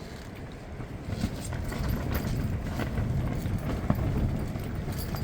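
Gale-force wind buffeting the microphone: a low, irregular rumble that grows stronger about a second in, with scattered light clicks over it.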